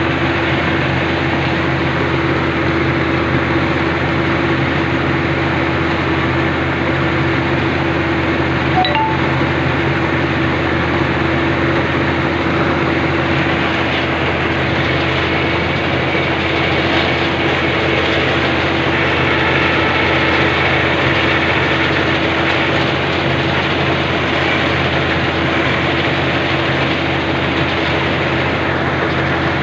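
Rice combine harvester running steadily, its engine and threshing machinery giving a loud, even hum with a brief tick about nine seconds in.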